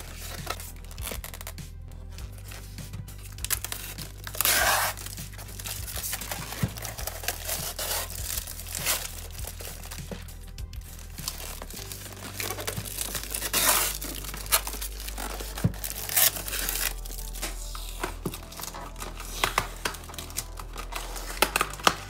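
Clear packing tape being peeled and torn off the seam of a polystyrene foam shipping box in several ripping pulls, with plastic crinkling, over background music.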